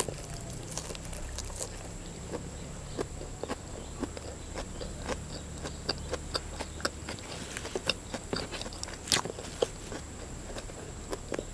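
Close-miked chewing of instant noodles: many small, irregular wet mouth clicks and smacks over a low steady hum.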